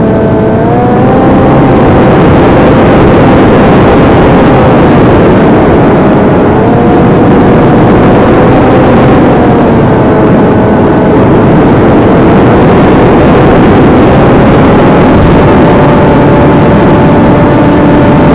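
Electric motor and propeller of a Versa Wing RC flying wing running in flight. Its hum drifts gently up and down in pitch with the throttle, over a loud rush of wind noise.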